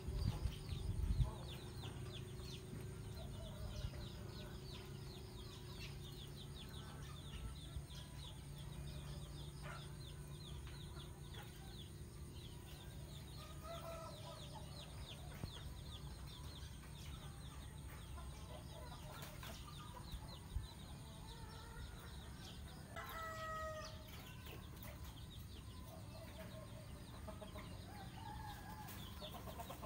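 Chickens clucking and calling in the background, with a longer, louder call a little past the middle. Faint high chirps come in the first half, over a steady low hum.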